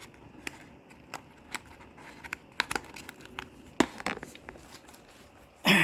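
Cardboard box and plastic packaging being handled: scattered light clicks, taps and crinkles as an old wiper blade is pushed into its box. A brief louder noise comes at the very end.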